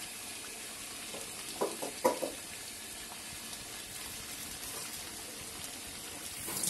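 Chicken curry sizzling in oil in a metal kadai, a steady hiss, with a couple of short knocks about two seconds in. The meat has been fried down until the oil separates, and coriander-leaf paste has just been added on top.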